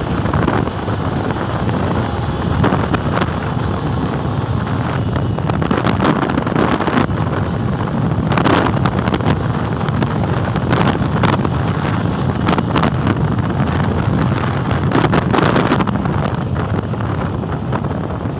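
Wind rushing over the microphone of a moving motorcycle, over the steady running of its engine and tyre noise, with louder gusts now and then.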